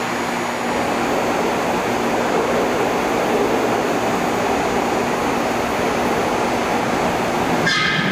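SEPTA Market-Frankford Line subway train (Adtranz M4 cars) approaching through the tunnel: a steady rushing rumble of wheels on rail that grows slightly louder, with a brief high-pitched screech near the end.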